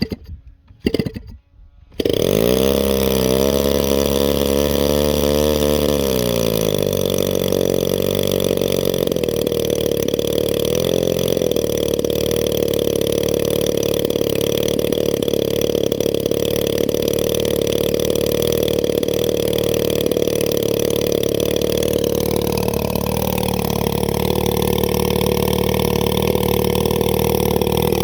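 A few knocks, then a 40cc boxer two-stroke engine on an RC plane comes in loud about two seconds in and runs up in pitch at high throttle. It then holds steady, dropping slightly in pitch a few seconds before the end.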